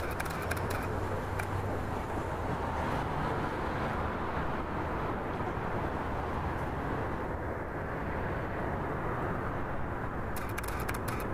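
Canon 5D Mark II shutter and mirror clicking in a quick run of bracketed exposures in the first second or so, and again near the end. Underneath is a steady low hum of distant city traffic.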